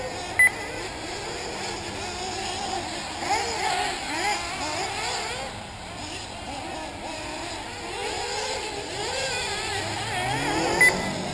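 Several 1/8-scale nitro RC buggy engines running at once, their high-pitched whine rising and falling as the cars accelerate and brake around the track. Two short, loud high beeps sound, one about half a second in and one near the end.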